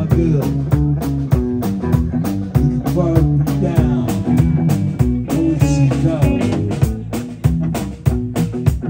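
Live rock band playing: drum kit keeping a steady beat under electric bass and electric guitar, with a man singing into a microphone.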